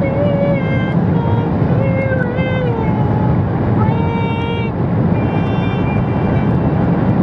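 Voices singing in long held notes that slide from one pitch to the next, over the steady rumble of a car on the road, heard inside the cabin.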